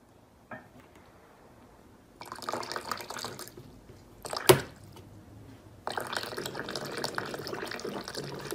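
Water splashing from a water dispenser's tap as a cat paws its lever: a short spurt about two seconds in and a sharp click midway, then a steady flow from about six seconds in.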